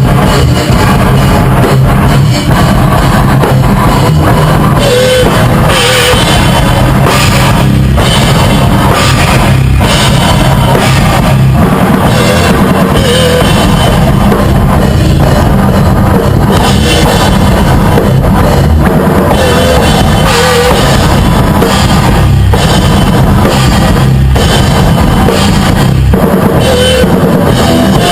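Rock band playing loud and continuous, with a drum kit to the fore: bass drum and cymbals over bass and guitar.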